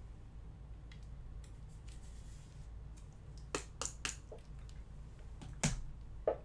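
A few short sharp clicks and taps from trading cards and their packaging being handled on a table: three quick ones a little past the middle, then two louder ones near the end, over a low steady hum.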